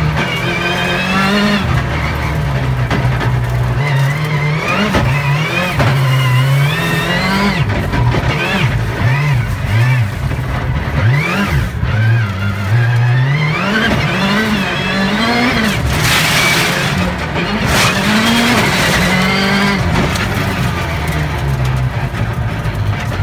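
Rallycross race car engine heard from inside the cabin, revving up and falling back over and over as it accelerates, shifts and brakes around the course. A couple of short rushes of noise come about two-thirds of the way through.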